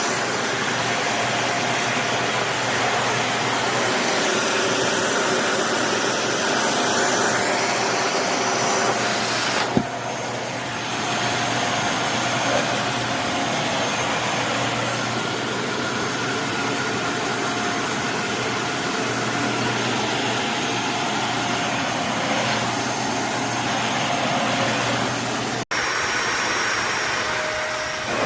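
Dyson Ball Animal 2 upright vacuum cleaner running steadily: a motor whine over a rush of air. The sound dips briefly about ten seconds in and cuts out for an instant near the end.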